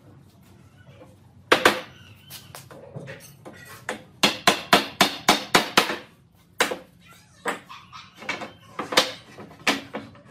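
Hammer blows on wood as jointed frame pieces are knocked together: a pair of blows about a second and a half in, a quick run of about six blows in the middle, then spaced single blows.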